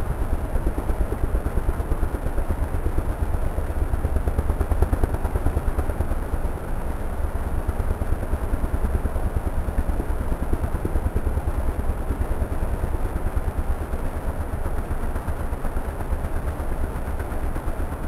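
An ATV engine idles with a rapid, low pulsing rumble under the steady rush of a fast, swollen snowmelt creek.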